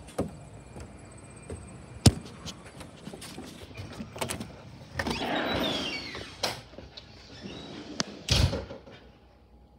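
Footsteps and sharp knocks on a wooden deck, then a house door being opened with a rough rattling and scraping stretch about five seconds in. A heavy low thump follows near the end.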